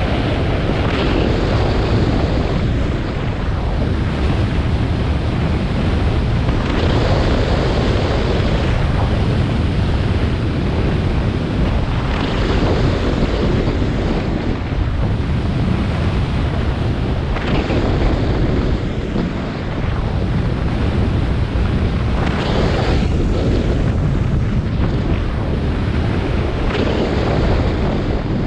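Snowboard sliding and scraping over snow at speed, with wind rushing on a GoPro Hero 7 Black's microphone. The scraping swells about every five seconds.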